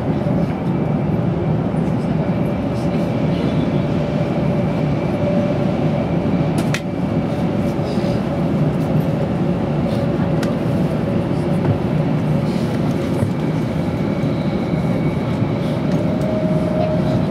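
Steady running noise inside a Tokaido Shinkansen passenger car at speed: a low rumble from the wheels and track with a faint hum. There is one sharp click about seven seconds in.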